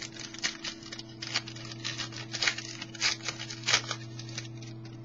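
Football trading cards being handled and slid against one another: an irregular run of short rustles and scrapes, over a steady low hum.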